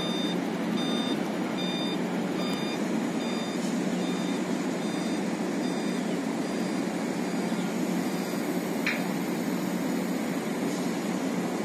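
Dump truck reversing beeper, beeping about three times every two seconds and fading out about seven seconds in, over the steady running of truck engines. A single short click sounds near the end.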